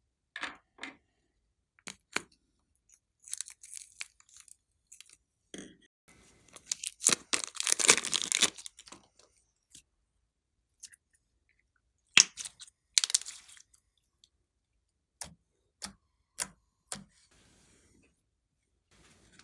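Glossy slime and a plastic piping bag being handled: short sticky clicks and pops with crinkly stretches. The longest and loudest crackle comes about seven to nine seconds in, and another about twelve seconds in.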